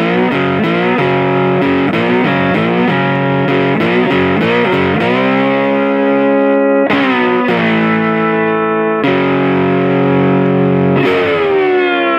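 Intro music: distorted electric guitar playing chords in a quick rhythm, then longer held chords, ending on a chord that slides down in pitch as it rings out.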